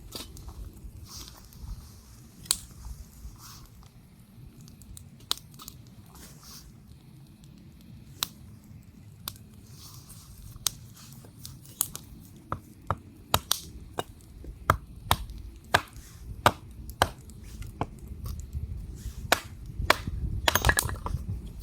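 Beaver gnawing and chewing: irregular sharp crunches, sparse at first and coming thick and loud in the second half, over a low rumble.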